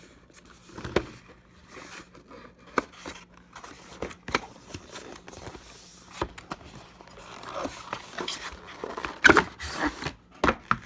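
Cardboard box and plastic packaging being handled and pried at by hand: scattered scrapes, rustles and small clicks, with a few louder knocks about nine seconds in.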